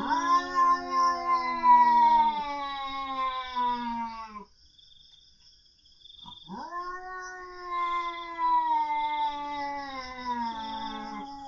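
Domestic cats caterwauling in a fight: two long, drawn-out yowls that slowly fall in pitch, the second starting about two seconds after the first ends.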